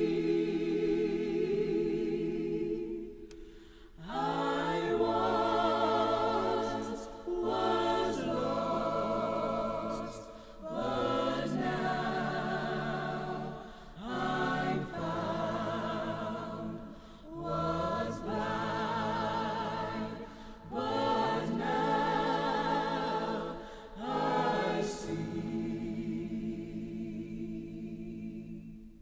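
A choir singing a cappella in phrases of three to four seconds with short breaks between them, the voices wavering in vibrato, fading out near the end.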